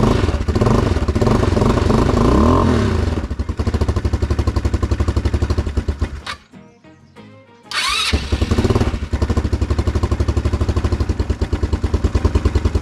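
Quad bike (ATV) engine running and revved just after starting, with a rising pitch as the throttle opens. About six seconds in it dies away, then about a second and a half later it starts again in a sudden burst and settles into a steady, evenly pulsing run.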